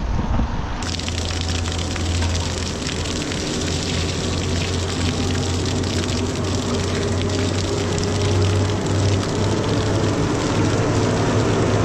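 Water running steadily from a roadside outlet, with a steady low hum underneath that drifts slightly lower near the end.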